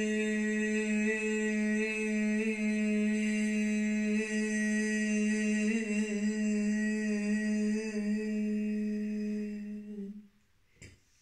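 A woman's voice holding one long, steady note on a single breath, a sustained qigong vocal tone, cutting off about ten seconds in. A short click follows near the end.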